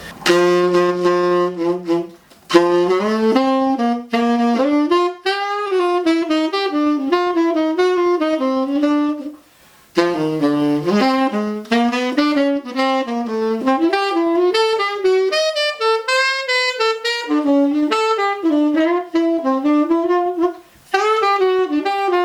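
Buescher Aristocrat tenor saxophone on a Brilhart hard-rubber mouthpiece being played to test a used La Voz medium-soft reed. A held low note opens, followed by quick jazz runs broken by short pauses for breath. The reed proves definitely soft.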